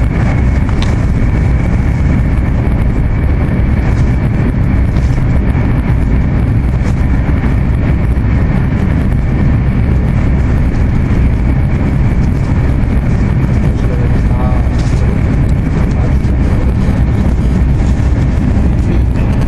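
Steady cabin noise of an AVE high-speed train running at speed, heard inside the passenger car: a constant low rumble and rush, with a faint steady high whine over it.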